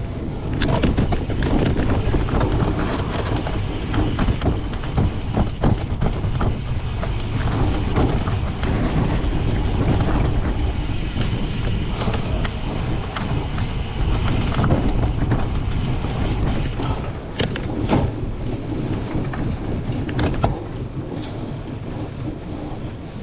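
Wind buffeting a bike-mounted or rider-worn camera microphone while a cyclocross bike rumbles over a rough course, with frequent knocks and rattles from the bike hitting bumps.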